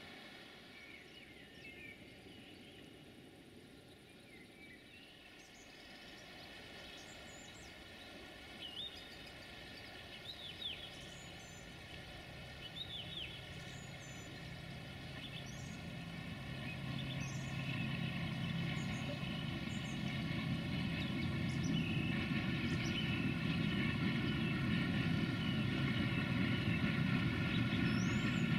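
Sulzer-engined 060-DA (LDE2100) diesel-electric locomotive hauling a freight train, its engine drone coming in faintly about a third of the way in and growing steadily louder as it approaches. Birds chirp throughout.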